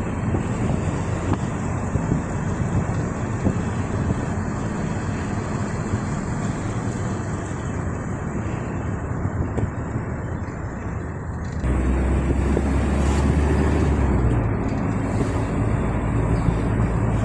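An engine runs steadily under a noisy din, with a low hum. About twelve seconds in, the sound changes suddenly to a louder, deeper hum.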